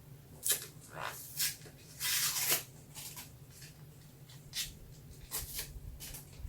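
Close-miked ASMR crinkling and crackling: a string of short, crisp crackles with one longer rustle about two seconds in, over a low steady hum.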